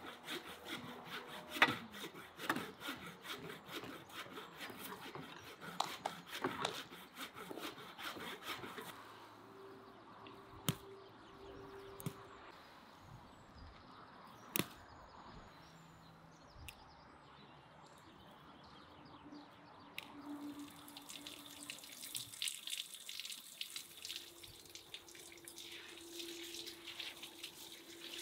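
Hatchet chopping wood on a stump, a run of sharp knocks over the first several seconds. A few isolated clicks follow, and near the end water from a tap starts running, as a steady hiss.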